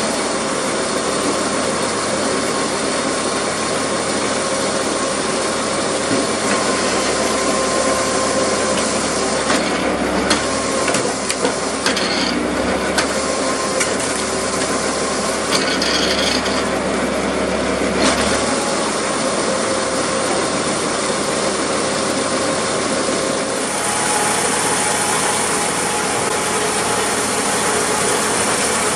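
Homemade PTO-driven hydraulic wood splitter running steadily under tractor power as the ram pushes hardwood rounds through the wedge, with creaks and cracks of the wood splitting in the middle stretch.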